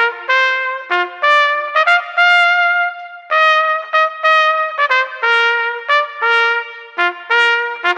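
Background music: a trumpet-like brass melody played in short, separate notes, in repeating phrases with one longer held note about three seconds in.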